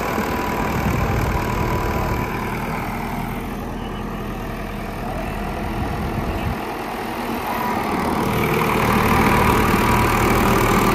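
Preet tractor's diesel engine running at low revs as the tractor manoeuvres forward and back, growing louder in the last few seconds as it comes close.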